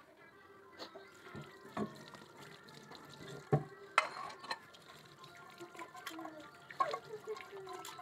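Washing up at a kitchen sink: tap water running into a metal pot, with plates and pots knocking together in a few sharp clanks, the loudest about halfway through and another near the end.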